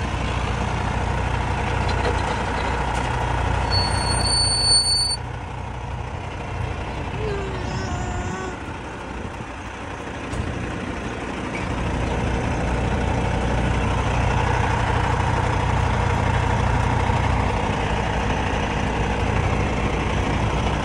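Heavy truck engine running with a steady low rumble that dips for a few seconds in the middle and then returns. A single high electronic beep lasts about a second, around four seconds in.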